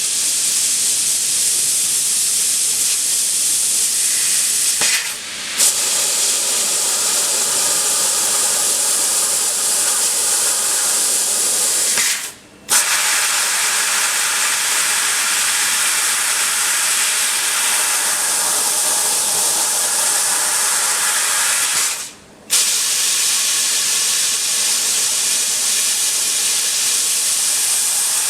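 2000 W fiber laser cutting machine cutting 4 mm brass: a loud, steady hiss of gas jetting from the cutting head. It cuts out briefly three times, each time resuming with a sharp burst.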